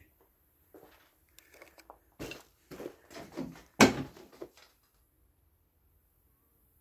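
Irregular knocks, creaks and scrapes of someone moving through a dilapidated house, with the loudest a sharp knock about four seconds in.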